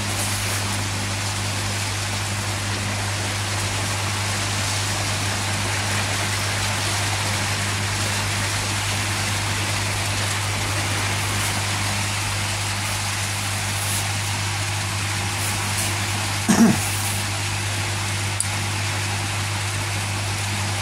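Aquarium-style air pump humming steadily while air bubbles up through the filter media in the DIY koi pond filter chambers, a continuous hiss of bubbling water over the pump's low hum; the airlines are working. A short, louder sound breaks in about sixteen seconds in.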